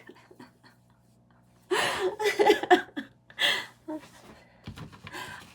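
A woman's voice, short untranscribed vocal sounds about two seconds in and again a second later, over a faint steady hum, with a few faint light clicks near the end.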